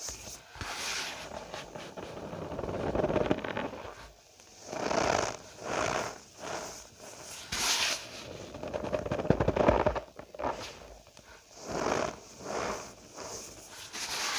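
Cornstarch powder being squeezed and crushed by hand, giving crunchy, squeaky crackles that come in uneven swells every second or two.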